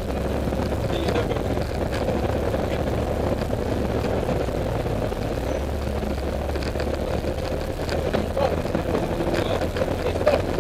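Rally car's engine running at steady, even revs, heard from inside the cabin together with road noise from the tyres.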